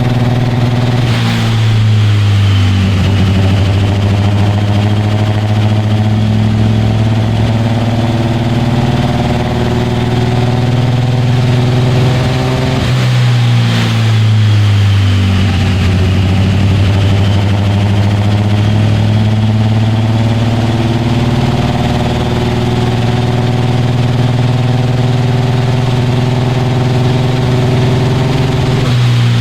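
Toyota AE82 Corolla's engine with aggressive 300/294 camshafts running loudly on a chassis dyno. Its pitch changes abruptly about a second in and again around halfway, and drifts slowly down and back up in between.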